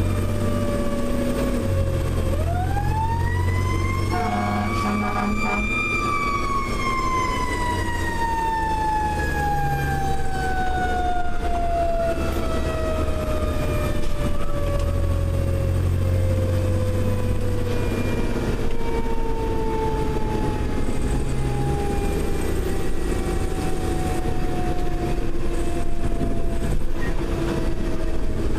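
Federal Q mechanical siren on a fire engine winding up to a high wail about two seconds in, then coasting down in a long, slow falling wail, heard from inside the cab over the truck's low engine drone. Short air-horn blasts sound around four to six seconds in.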